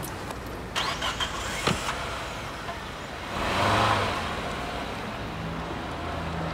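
A car in the street: a few clicks and rattles about a second in, then a car going past with a swell of engine and tyre noise just after the middle, followed by a low steady hum.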